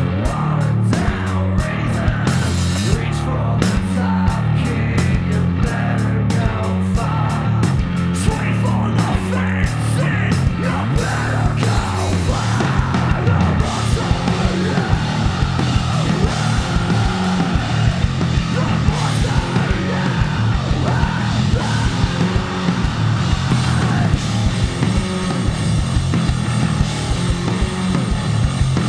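Live rock band playing loud, with electric guitar, bass and drums.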